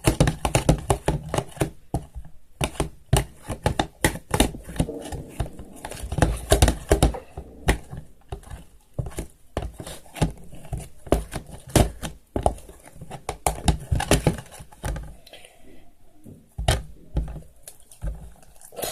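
Glue-and-borax slime being stirred without pause: a fast, irregular run of clicks, knocks and wet squelches as the mix is worked while it sets.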